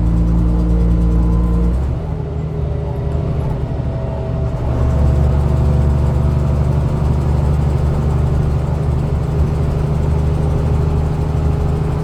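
Dennis Dominator double-decker bus engine running. Its steady drone drops and goes rough and uneven about two seconds in, then settles back into a steady drone about five seconds in.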